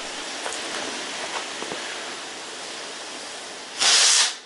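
Small cannon's fuse burning with a steady hiss and a few faint crackles. Near the end comes one loud hissing whoosh lasting about half a second: the smokeless powder charge blowing out through the fuse hole without building pressure, so the cannon does not fire and its lead ball stays stuck in the barrel.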